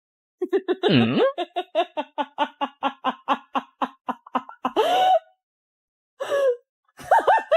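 A person laughing hard: a long run of quick, even laughs, about five a second, followed by a few short rising cries near the end.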